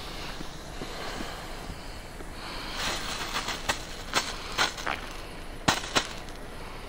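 Fuse hissing, then a Pyrotrade green strobe Bengal flare catching about three seconds in and burning with a hiss broken by irregular sharp pops as the strobe composition flashes, the loudest two near the end.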